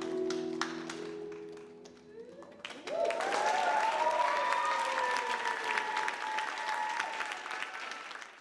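The rumba music's final held chord fades out. About three seconds in, the audience breaks into loud applause with cheering, including one long held call over the clapping, and the applause tails off near the end.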